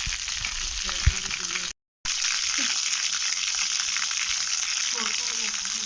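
Chicken legs shallow-frying in oil in a pan: a steady, crackling sizzle. There is a short knock about a second in and a brief dropout just before two seconds in.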